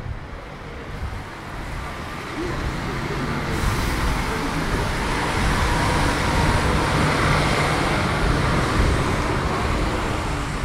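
City street traffic: motor vehicles passing, swelling in loudness about two seconds in and staying loud for most of the rest.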